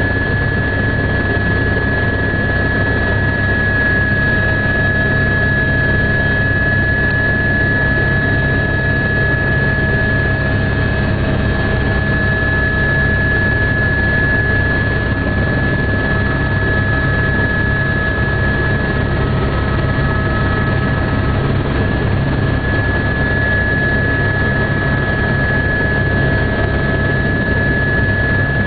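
Helicopter in flight, heard from inside the cabin: a steady low rumble of engine and rotor with a constant high whine over it.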